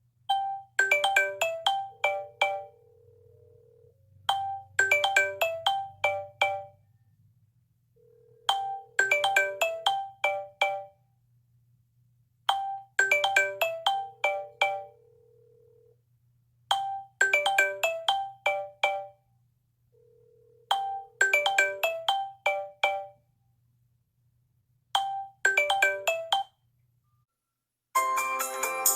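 Samsung Galaxy S6 ringtone for an incoming call: a short melody of quick, bright, mallet-like notes that repeats about every four seconds with gaps of silence between. About a second before the end, a different, denser ringtone starts.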